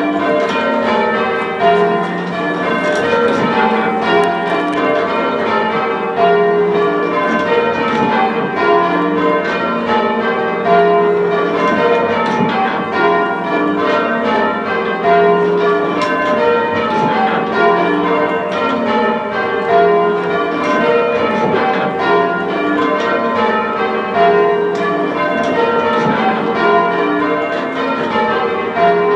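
A ring of six heavy church bells being rung full circle in change ringing, striking one after another in a steady, even rhythm.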